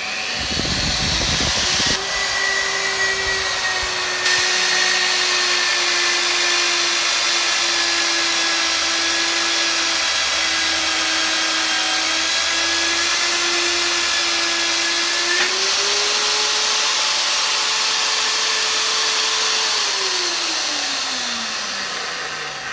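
Cayken SCY-42HD magnetic drill motor spinning up and running while a 14 mm carbide annular cutter drills through 10 mm steel plate. Its steady whine sags slightly in pitch during the cut and climbs a little about 15 seconds in. Near the end the motor is switched off and winds down with a falling pitch.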